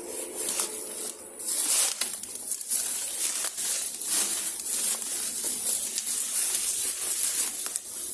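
Footsteps crunching and brush rustling as someone walks through tall, overgrown grass and undergrowth, under a steady high hiss.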